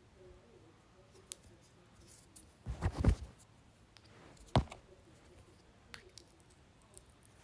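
Handling noise close to the microphone: a few light clicks, then a cluster of knocks about three seconds in and one sharp knock a second and a half later.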